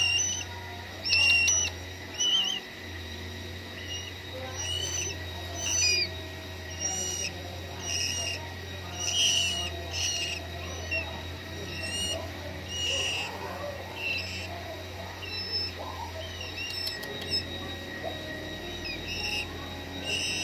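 Week-old murai nestlings giving short, high begging chirps, about one a second, as they are hand-fed. A steady low hum runs underneath.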